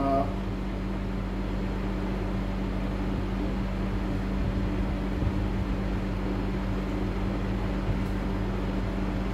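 Steady hum of a running machine, with a constant tone and an even noise underneath, unchanging throughout.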